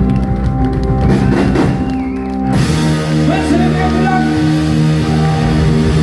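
Live rock band playing: electric guitars, bass, drums and keyboard on held chords. The sound turns brighter and fuller about two and a half seconds in.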